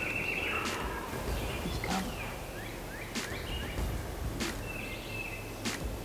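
Spring woodland ambience with scattered songbird chirps and a few sharp clicks, and a raspy friction turkey call worked at the start and again about five seconds in.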